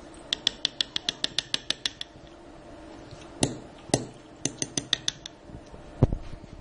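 Metal spoon clinking against a glass as it stirs coffee and ricotta cream: a quick run of about seven clinks a second, then a few louder single taps and another short run. A dull thump near the end.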